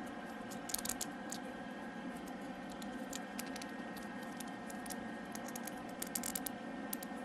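Faint clicks and scratches of a plastic action figure's swivel elbow joint being turned by hand. They come in two short clusters, about a second in and again near the end, over a steady background hum.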